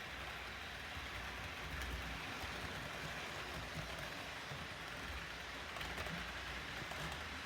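HO scale model train running on its track: a faint, steady low rumble and hiss with a few light ticks.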